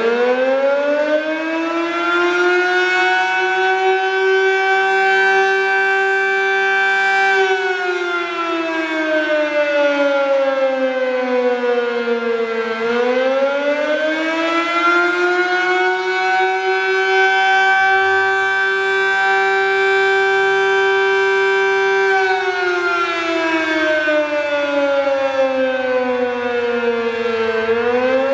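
Sterling Model M 8/8-port fire siren sounding the attack signal. It holds a high single-toned wail for several seconds, then slides down in pitch and winds back up, twice, and starts rising again near the end.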